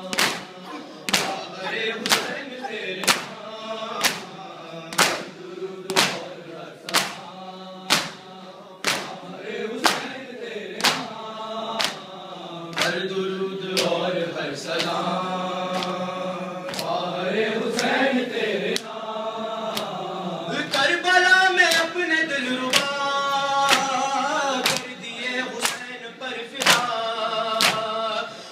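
Men chanting a noha, a Shia lament, in unison while beating their chests (matam) in time. Sharp hand-on-chest slaps land about once a second for the first dozen seconds. After that the chanting carries on with fewer slaps, growing louder and higher about two-thirds of the way through.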